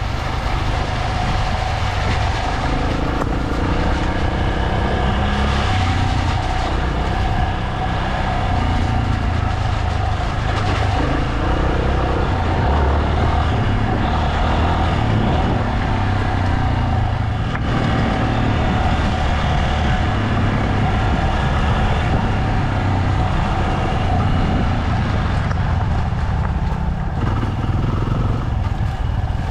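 Motorcycle engine running continuously under way, its revs rising and falling a little.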